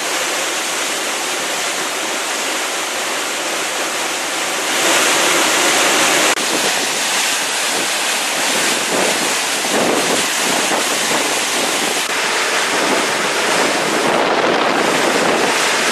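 Hurricane wind and surf: a loud, steady rush of noise with wind buffeting the microphone. The sound changes abruptly about five and again about six seconds in.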